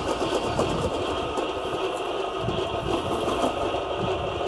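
Radio-controlled model tanks running, a steady mechanical whirr of their small electric motors and plastic gearboxes.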